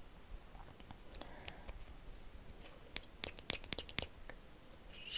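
Small hard beads handled in the fingers close to the microphone: faint handling noise, then a quick run of about seven sharp clicks about three seconds in.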